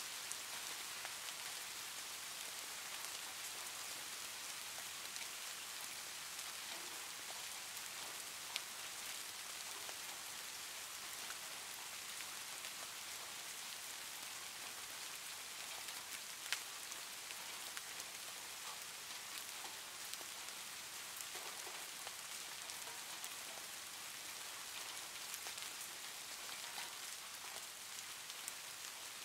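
Soft steady rain ambience: an even hiss of rain falling on a surface with scattered drops. Two sharper ticks stand out, about eight and sixteen seconds in.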